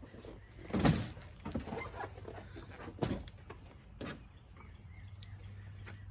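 Cardboard boxes being handled and moved: a few knocks and thuds, the loudest about a second in and two more around three and four seconds, with scraping and rustling between them.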